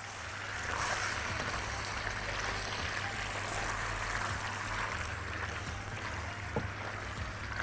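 Steady sizzling hiss from a hot pan just taken off the heat, as penne with sausage in béchamel sauce is stirred with a silicone spatula.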